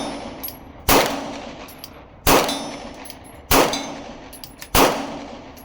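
Four 9mm pistol shots from a Glock 19X, spaced about one and a quarter seconds apart, each followed by the ringing clang of the bullet hitting a steel target.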